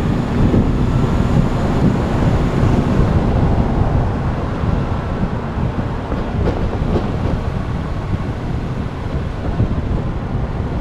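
Wind buffeting the microphone of an action camera moving along a road: a loud, steady rumbling rush.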